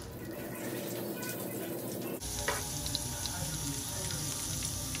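Breakfast sausage links sizzling in hot oil in a frying pan. The sizzle changes abruptly a little over two seconds in.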